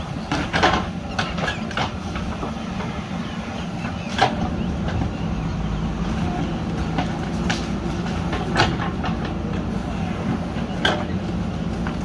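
JCB backhoe loader's diesel engine running steadily under load as the backhoe arm digs into soil. Several sharp knocks from the arm and bucket stand out, a cluster in the first two seconds and then a few more spread through.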